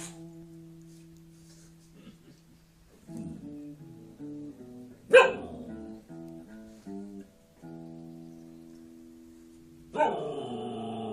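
Plucked guitar notes ring and fade one after another. A dog gives one sharp bark about halfway through, then starts a louder, drawn-out vocalizing near the end.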